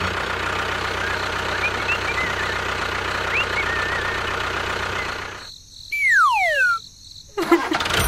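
Tractor engine running steadily, with a few faint bird chirps, fading out about five and a half seconds in. Then a loud whistle sliding down in pitch, and music starting near the end.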